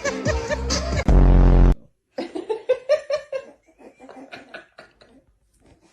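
Loud music that ends in a brief, very loud low blast about a second and a half in, then, after a short gap, a person laughing in a quick run of short bursts that fades away.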